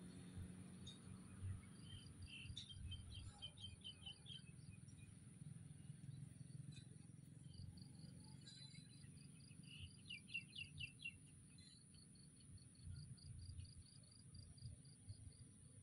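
Faint outdoor ambience: an insect chirping in a steady pulse about four times a second, with two quick runs of bird chirps, one early on and one about ten seconds in, over an uneven low rumble.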